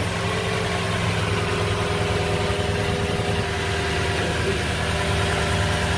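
A 2013 Lexus LX570's 5.7-litre V8 idling steadily. It is being run for a minute on its fresh oil fill so the new filter and drain plug can be checked for leaks.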